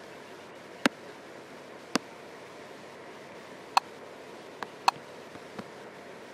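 Fingertip taps on a touchscreen: about six sharp clicks at uneven intervals over a steady hiss.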